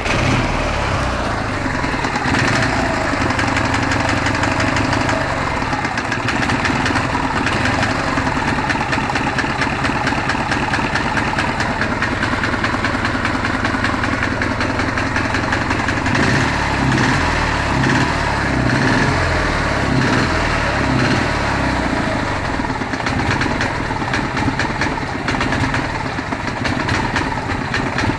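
A Ural's engine idling cold with a knock. The owner says the knock is there only on a cold engine and goes away once it warms up, when the idle also steadies.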